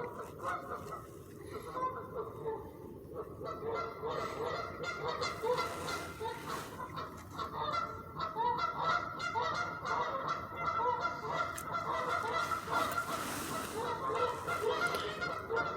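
A flock of geese honking, with many short calls overlapping. The calls are sparse at first and grow dense from about three seconds in. It is the noisy calling of goose pairs squabbling over territory.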